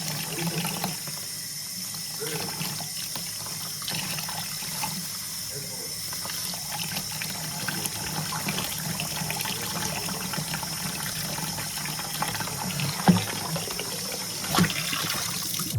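Water running steadily from a tap into a sink, with a few small knocks.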